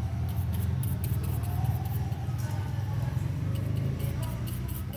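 Small scraping and clicking as a screwdriver tip picks packed hair out of a hair clipper's plastic housing, over a steady low hum.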